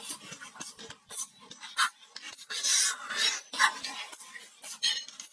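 Close-up crunching and chewing of fried scorpions in short, irregular bursts.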